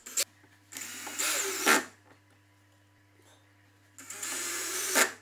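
Cordless drill/driver run in two short bursts of about a second each, working an aluminium U-channel rail into a plywood tabletop. Each burst gets louder just before it stops, and there are a couple of short clicks at the start.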